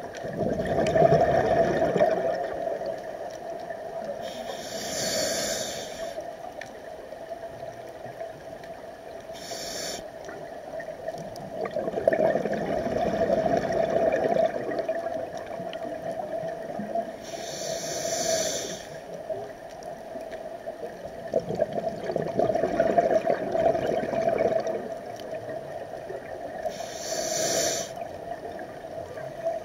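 Scuba diver breathing through a regulator underwater: four short hissing inhales several seconds apart, each followed by a long rumbling exhale of bubbles.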